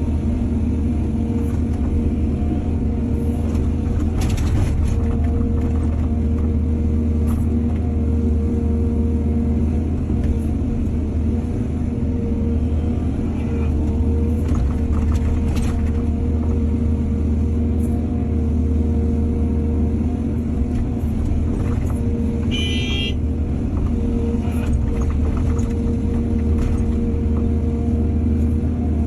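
Excavator's diesel engine running steadily under load, with a few faint knocks and a brief high-pitched squeal about three-quarters of the way through.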